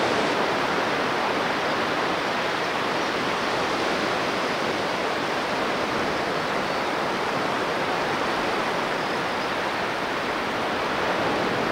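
Steady wash of surf breaking on a sandy beach, an even rushing noise that holds at one level throughout.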